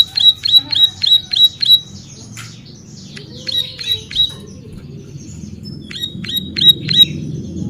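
Ciblek sawah, a small prinia, singing: a fast series of sharp repeated chip notes, about five a second, then a scattered, harsher stretch and a short lull, before a second quick series near the end.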